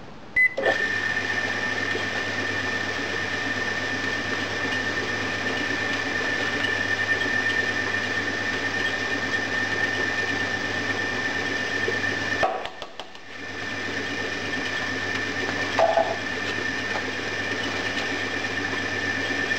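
A short beep from the sand mixer's microwave-oven controller, then the electric foundry sand mixer starts and runs steadily, a low motor hum with a steady high whine as the pan turns the green sand under the roller and plough. About twelve seconds in it stops briefly, then starts and runs again.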